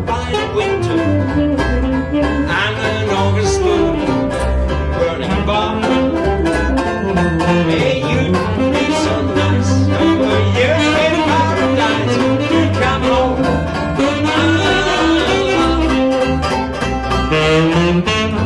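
A small jazz group playing: a saxophone carries a wavering melody over steady, evenly spaced banjo chord strumming and double bass.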